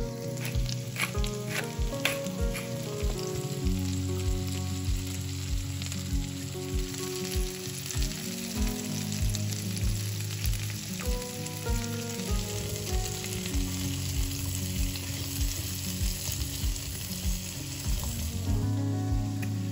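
Food sizzling as it fries in oil in a pan, with a few clicks of a utensil early on. Background music with a steady beat plays over it.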